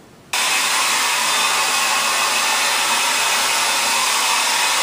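Handheld hair dryer switched on about a third of a second in, then running steadily while blow-drying hair.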